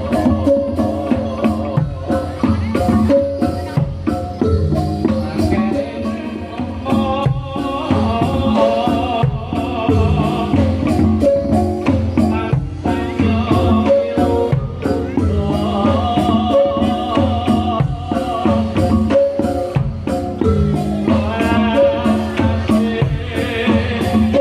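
Javanese gamelan-style percussion music accompanying a Reog Bantul dance: struck metal-keyed instruments and gongs play a repeating pattern over a steady drum beat.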